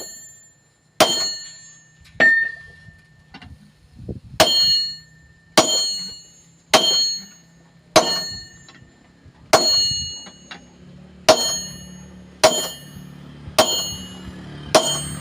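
Hammer blows on metal at an anvil, each clanging and ringing out briefly. There are about a dozen strikes, roughly one a second, with a longer pause about three seconds in.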